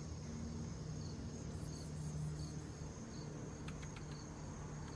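Insects chirping: a steady high trill with short chirps repeating about once a second, over a low hum.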